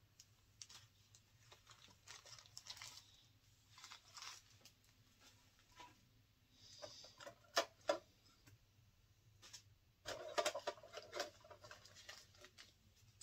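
Faint rustling of small plastic bags and scattered light clicks as bags of diamond-painting drills are searched through for a colour, with a busier stretch of rustling about ten seconds in.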